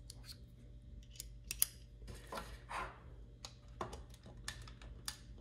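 Light, irregular clicks and rattles of small metal screwdriver bits being picked out of an iFixit Manta kit's bit tray and swapped on the driver, with some rustle of hands handling them.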